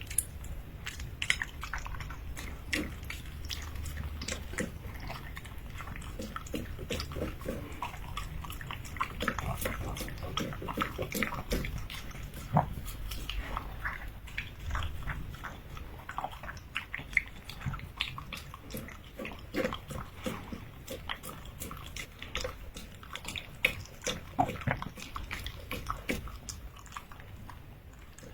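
A puppy chewing and biting its food: a long run of irregular crunches and clicks.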